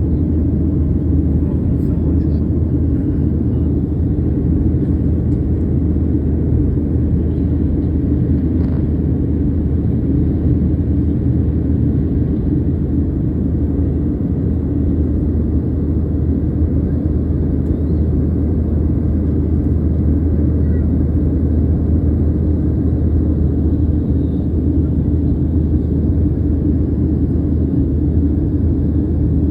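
Steady, loud low rumble of a vehicle engine running at an even pace, unchanging throughout.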